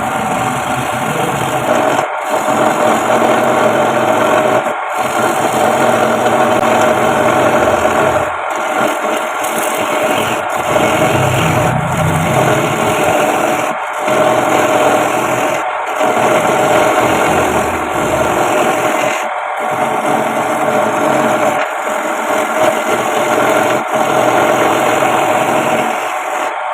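Wood lathe running with a tool scraping and rubbing against the spinning wooden spoon blank, a steady abrasive hiss over the motor's hum, broken by short gaps every few seconds.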